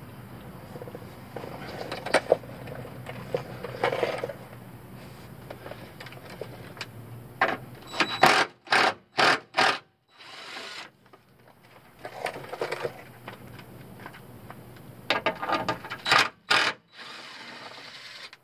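A 10 mm socket on a ratchet works the bolts that hold the truck's plastic underbody cover: bursts of ratcheting and metal-on-plastic scraping. A run of sharp, loud clicks comes about halfway through and another near the end.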